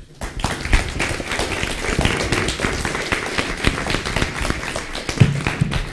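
Audience applauding: dense clapping from many hands that dies down near the end.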